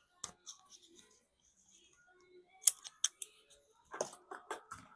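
A scattering of small sharp clicks and light taps from tools and small parts being handled during phone reassembly, with a quicker run of taps near the end.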